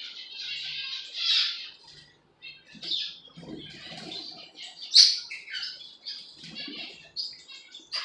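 Peach-faced lovebirds chattering: quick high chirps almost throughout, breaking off briefly about two seconds in, with one loud sharp call about five seconds in. A couple of soft low rustles sit under the calls.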